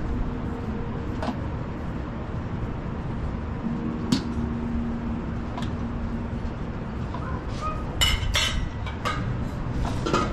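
Stainless steel roll-top chafing dish lids being swung open on their hinges, with a few sharp metallic clicks and clinks and a denser cluster of clinks about eight seconds in, over steady background noise.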